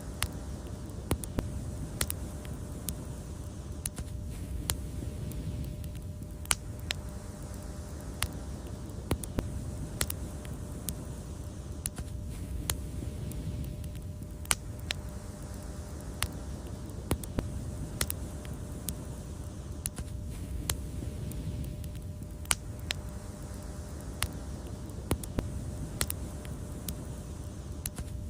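Wood fire burning in a fireplace: a steady low roar with sharp, irregular crackles and pops scattered throughout.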